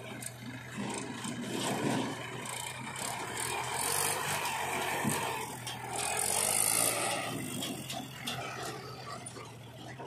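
Diesel farm tractor engines running steadily, with metal rattling.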